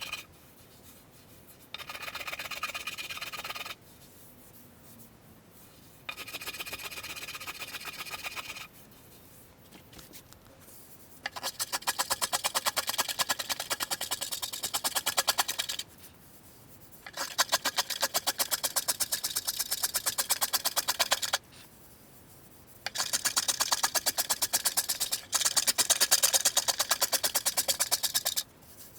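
Wood being shaped with a hand tool in five separate passes of two to five seconds each, with short pauses between. The first two passes are smoother scraping; the last three are longer and rattle with very fast clicks.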